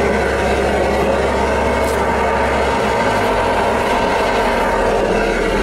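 Heavy diesel engine running steadily, heard from inside an excavator cab. The deepest part of the hum changes about halfway through.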